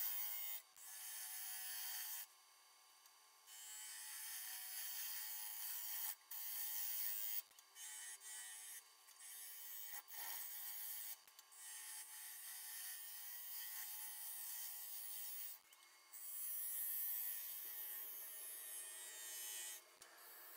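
Turning tool cutting a partly seasoned spalted ash bowl blank spinning on a wood lathe: a steady hiss of shavings, broken many times by short pauses as the tool comes off the wood, with a longer pause about two seconds in. A faint steady hum from the lathe runs underneath.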